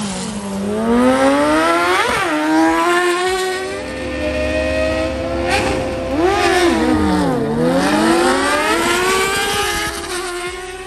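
Racing engines revving hard as vehicles accelerate down a drag strip. The engine pitch climbs and drops several times.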